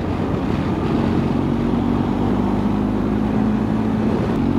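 BMW R1250 GS Adventure's boxer-twin engine running steadily at road speed, with wind rushing past, heard from on the moving motorcycle.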